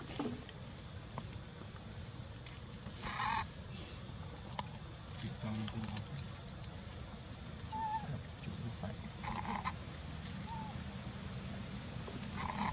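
Steady high-pitched insect drone, with a few short calls or squeaks scattered through it.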